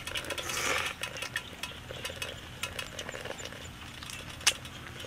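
Crisp crackling and rustling of fresh leafy greens as they are torn apart by hand, with one sharper snap near the end.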